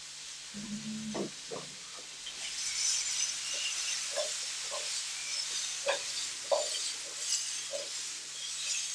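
Sliced carrots glazing in honey, sizzling in a frying pan as it is tossed over the flame, with scattered light knocks and clinks. The sizzle swells about two seconds in.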